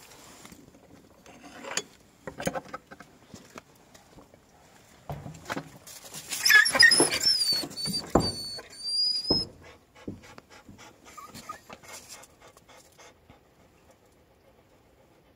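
West Siberian Laikas whining and squealing in a string of high-pitched cries for about three seconds in the middle, among rustling, scuffling and a few dull knocks.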